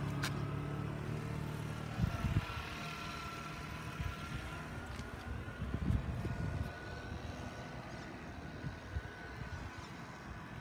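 A steady distant vehicle engine drone with a faint high whine, and louder low rumbling bursts about two seconds and six seconds in.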